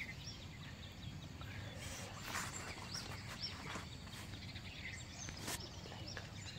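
Faint outdoor background noise with scattered small bird chirps and a couple of brief soft noises.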